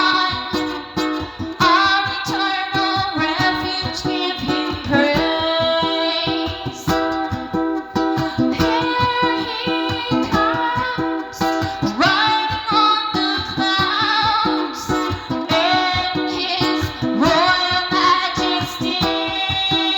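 A song: a singer over guitar accompaniment, with sung lines that slide between notes.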